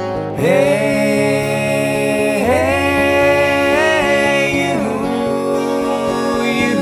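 Background music: a slow piece with a long melody line that slides and wavers in pitch over steady low held notes.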